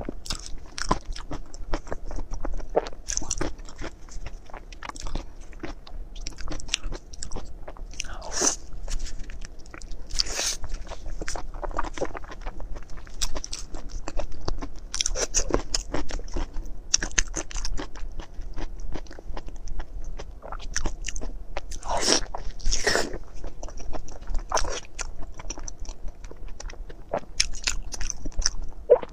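Close-miked eating: a person biting into and chewing soft, sauce-glazed food, with wet smacking mouth sounds and a few louder bites.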